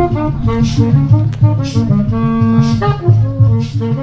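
Saxophone played live over a backing track with a bass line and a steady beat.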